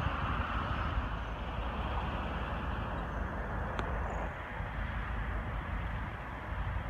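Steady low rumble and hiss of idling semi-truck diesel engines, with one faint click about four seconds in.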